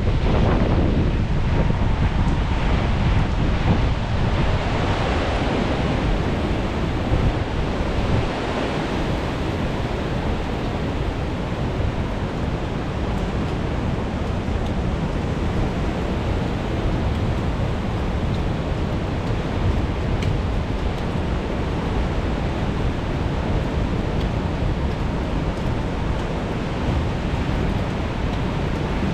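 Strong wind buffeting the microphone with a steady low rumble, over the rushing wash of sea surf. The sound is a little louder for the first few seconds, then holds even.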